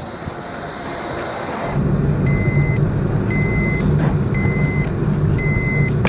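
Crickets chirping steadily, then a truck's engine running with its reversing alarm beeping about once a second, each beep about half a second long.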